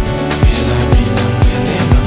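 Afro house dance track playing, with a kick drum on every beat, about two a second, over a held bass line.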